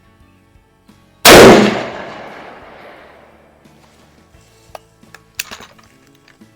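A single rifle shot from a CVA Optima Elite single-shot break-barrel in .243 Winchester, about a second in, its report echoing away over about two seconds. A few light clicks follow near the end.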